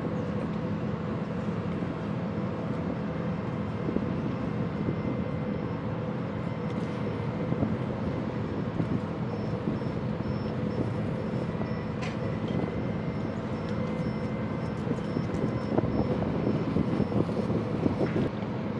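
A steady low engine drone under a hiss of wind and water, with a faint thin high whine through the middle.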